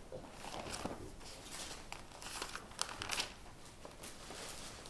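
Pages of a Bible being leafed through by hand: faint, scattered rustles and crinkles of thin paper.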